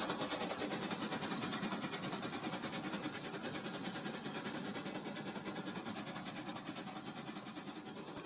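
Battery-powered Rail King toy trains running on plastic track: a steady motor whir with fast, even clicking of the wheels over the track, growing slightly fainter as they move off.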